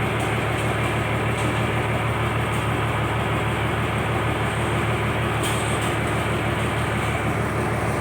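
A fishing boat's engine running steadily: an unbroken low drone with a wash of noise above it.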